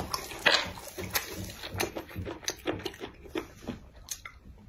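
Screw cap being twisted off a glass liquor bottle, giving a quick run of sharp clicks over the first couple of seconds. This is followed by softer scattered ticks and mouth sounds as liquor is swigged straight from the bottle near the end.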